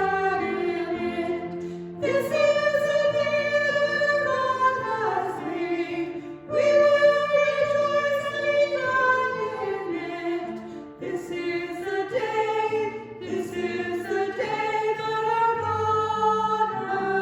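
A choir singing a hymn, with long held notes over a steady low accompaniment.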